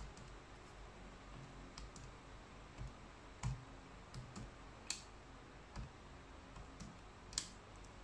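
Keys being pressed to work out a sum: about ten short, sharp clicks at an irregular pace, with a faint low hum underneath.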